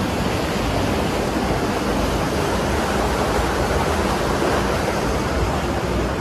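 Creek water rushing below a boardwalk in a narrow gorge: a steady, unbroken rush.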